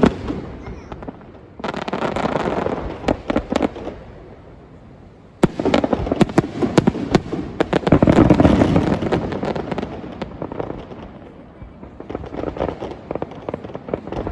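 Aerial fireworks bursting and crackling in successive salvos: a burst about a second and a half in, a much larger barrage starting about five seconds in that peaks a few seconds later, and a smaller one near the end, each full of rapid sharp crackles.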